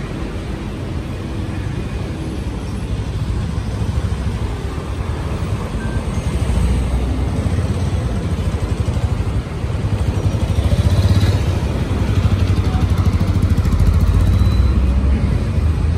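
City street ambience: a steady low rumble of traffic, growing louder about ten seconds in.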